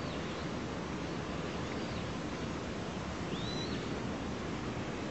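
Outdoor background: a steady noisy hiss, with a few faint, short, high bird chirps arching up and down, about every couple of seconds.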